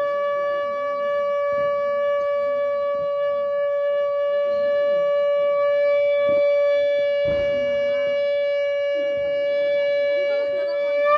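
Conch shell (shankha) blown in one long, steady note, held without a break as long as the player's breath lasts, then cutting off near the end.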